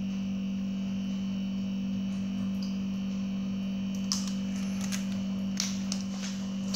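A steady low hum, with a few small clicks and taps from about four seconds in as a vape atomizer is handled and its parts fitted together.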